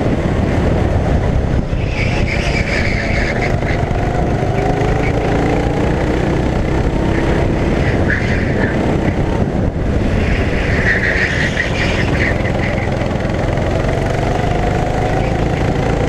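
Rental go-kart engine heard from onboard, its revs rising and falling as it laps, over a heavy rumble. A higher, rougher sound swells in and out a few times.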